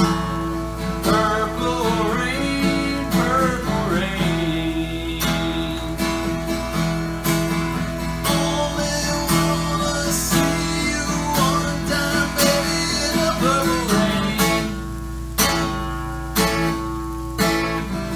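A steel-string acoustic guitar strummed in chords, with a man singing over it in two stretches. Near the end the strumming turns into single strong strokes with short gaps between them.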